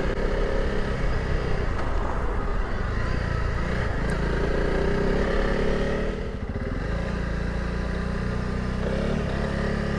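Honda CRF300 Rally's single-cylinder engine running as the motorcycle is ridden, its pitch rising and falling with speed, over wind and road noise. The sound drops briefly about six and a half seconds in.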